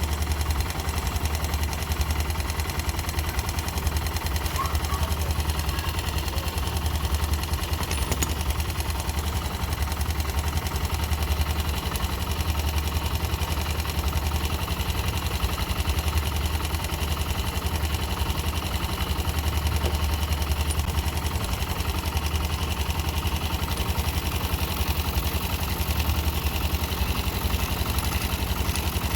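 Yamaha YB motorcycle engine idling steadily with a fast, even beat. This is the engine noise that the owner is presenting as a problem.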